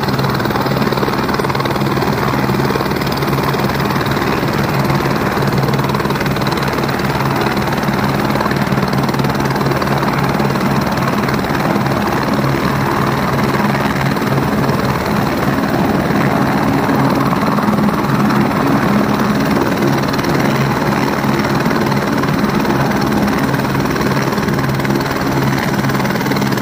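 A helicopter's turbine engine and rotor running steadily, a continuous loud drone with a low hum underneath, swelling slightly midway.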